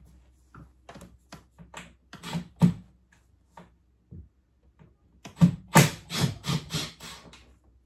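Irregular knocks and clatter of plastic and metal parts being handled inside an opened ceiling-cassette air conditioner, with a quick run of about six sharp knocks past the middle.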